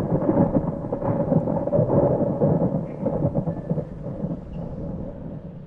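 Thunder rolling: a rumble that is loudest in the first couple of seconds and then slowly fades away.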